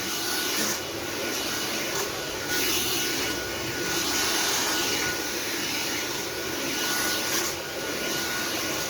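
Sauber Technic cordless stick vacuum running on its high power setting: a steady high motor whine over rushing airflow.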